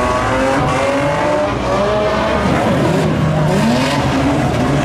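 Several banger race cars' engines revving hard at once as the pack races round a shale oval, their pitches rising and falling and overlapping.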